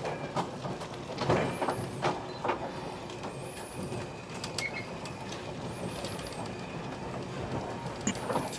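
Railway train running, a steady rumbling noise with irregular clicks and knocks from the wheels and rolling stock.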